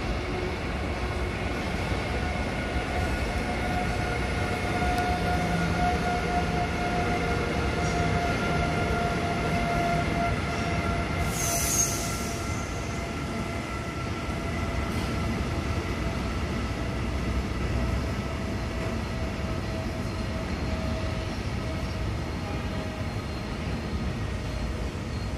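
Electric freight train with hopper wagons rolling through a station: a steady rumble of wheels on rail with a whine of several steady tones. A brief high hiss comes about twelve seconds in.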